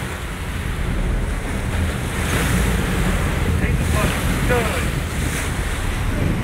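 Wind buffeting the microphone over the rush of churning wake water and the rumble of the sportfishing boat's engines under way.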